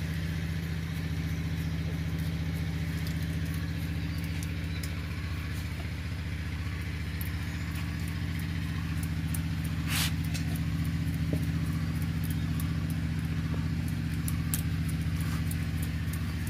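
A motor running steadily with an even low hum, with scattered light clicks and one sharper knock about ten seconds in.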